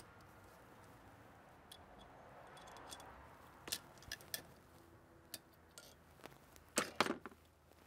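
Circlip pliers and a steel circlip clicking against a steel sleeve as the circlip is worked back into its groove: a few faint metallic clicks, with the loudest pair near the end.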